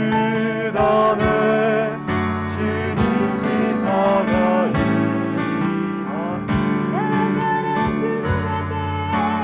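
A small group of singers, women and a man, singing a slow Japanese worship song to keyboard accompaniment.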